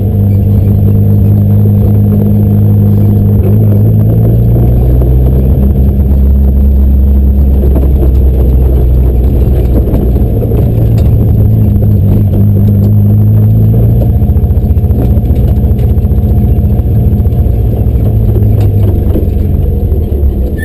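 Race car engine heard from inside the stripped-out cabin, running loud under way with a low drone. Its pitch steps up and down a few times as the driver changes revs.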